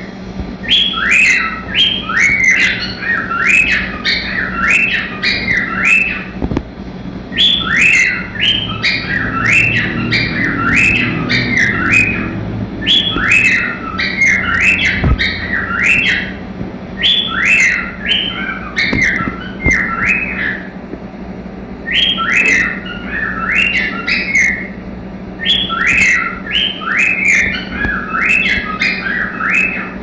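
Cockatiel singing: runs of quick, repeated whistled chirps, several a second, in phrases a few seconds long with brief pauses between them.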